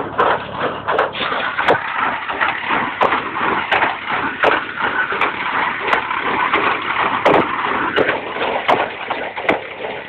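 Massey Ferguson MF 14 small square baler running as it picks up and bales hay: dense mechanical clatter with sharp knocks every second or so.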